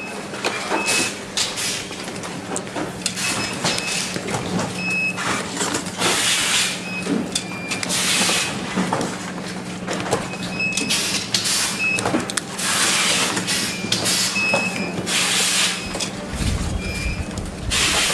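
Power bank factory floor: repeated hissing bursts about a second long, short high electronic beeps and a steady machine hum, with a low rumble near the end.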